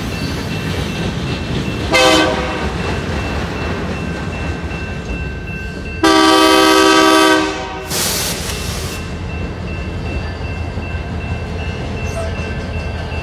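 Diesel freight locomotive air horn sounding at a grade crossing: a short blast about two seconds in, then a longer blast of about a second and a half around six seconds in, with a brief hiss just after. Underneath, the passing train and locomotive engines keep up a steady low rumble.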